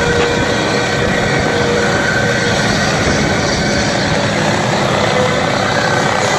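Helicopter in flight: a loud, steady rotor and engine noise with a few steady whining tones over it.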